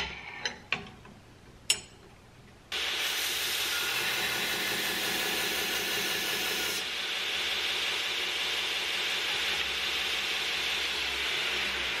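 A few light clicks and knocks, then, about three seconds in, a belt grinder's steady hiss starts abruptly as its abrasive belt grinds the bevel of a CPM 154 stainless steel knife blade held in an angle-iron jig.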